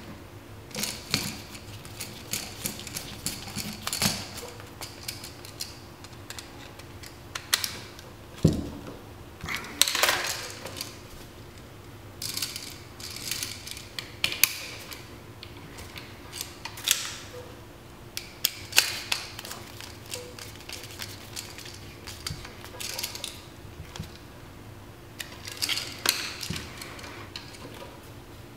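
Irregular clicks, taps and scrapes of a screwdriver and copper wires being worked onto the screw terminals of an electrical outlet as the terminal screws are tightened down.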